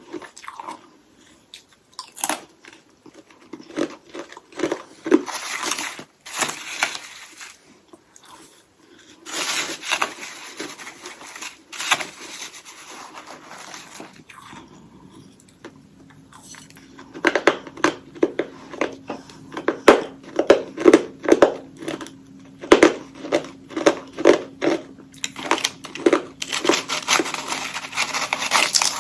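Frost-coated hollow ice sticks being bitten and crunched close to the microphone. The first half has scattered bites and scraping crunches. From a little past halfway, rapid steady chewing of crushed ice sets in over a faint steady hum.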